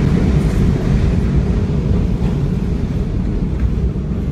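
Deep, steady rumble that eases slightly toward the end, with a few faint clicks over it: the lingering rumble after a large explosion.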